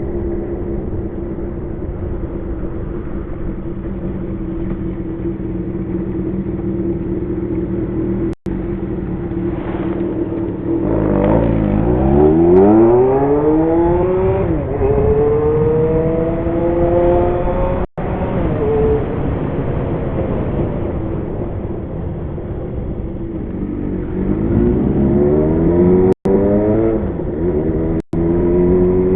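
Kawasaki Zephyr 750's air-cooled inline-four running through an MRS exhaust fitted with a louder inner silencer, while being ridden. The engine note holds steady at first, then drops and climbs again several times as the bike accelerates. The sound cuts out for an instant four times.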